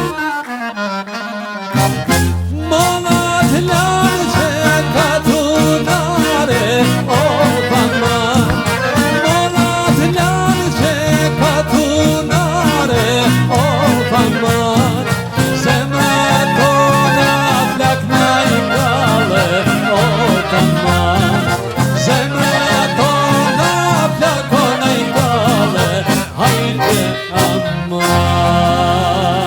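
Albanian folk dance music led by accordion over a steady beat. The full band comes in about two seconds in.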